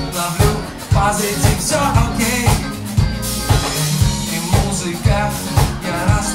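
Live band playing: a drum kit keeps a steady beat under an electric bass line, with a male voice singing over it.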